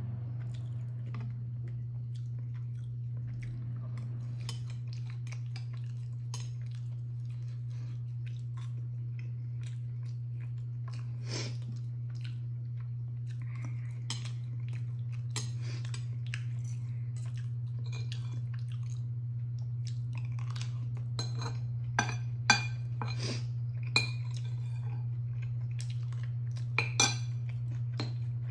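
Eating sounds: chewing, with metal chopsticks and a spoon clinking against a ceramic bowl and frying pan, a few sharper clinks near the end. A steady low hum runs underneath.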